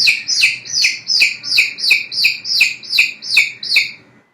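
A chick peeping: about eleven high, evenly spaced peeps, each sliding down in pitch, close to three a second.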